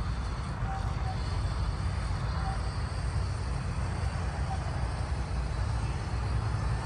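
Wind buffeting the microphone: an uneven low rumble with a steady hiss, and a few short faint high tones.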